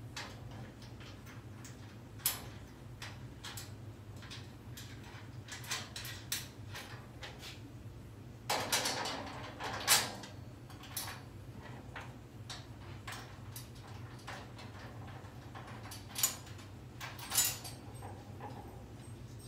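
Bolts, washers, nuts and hand tools clinking and knocking against a metal roof basket frame as its sections are bolted together, with a longer scraping clatter about nine seconds in. A steady low hum runs underneath.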